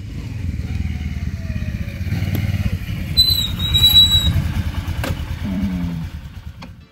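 A motor vehicle engine, like a motorcycle's, running with a fast low rumble that grows louder to a peak about four seconds in, then fades away, as if passing by. A brief high-pitched tone sounds just after three seconds.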